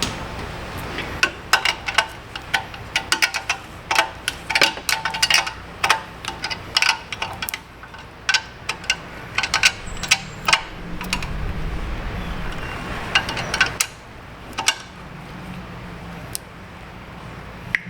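Metal hand tools and bolts clicking and clinking in quick irregular runs while a new A/C compressor is bolted into place, with the clicks thinning out after about seven seconds.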